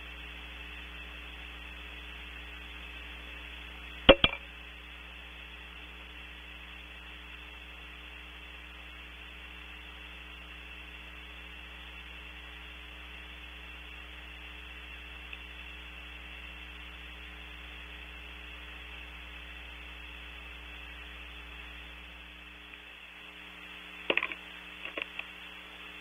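Steady electrical hum and hiss of a nest-box camera's microphone, broken by a sharp knock about four seconds in and a short cluster of knocks near the end.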